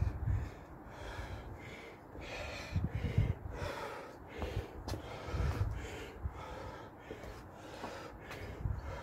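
A man breathing hard, gasping and panting with a breath about every half second. He is out of breath after an exhausting set of burpees and jump squats.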